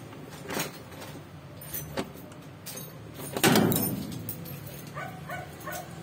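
A few sharp knocks, a heavy thump about three and a half seconds in, then several short high-pitched squeals near the end.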